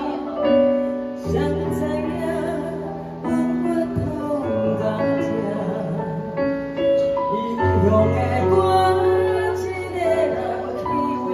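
Music with sustained melodic notes over a steady bass line, with what may be a singing voice.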